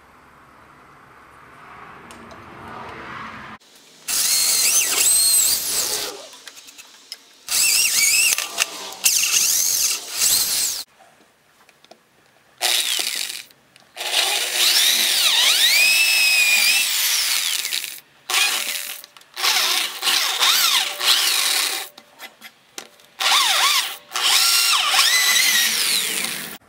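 Handheld electric drill boring into a wooden board, starting about four seconds in and running in about six bursts of a few seconds each, separated by short stops. The motor's pitch rises and falls with the trigger and the load.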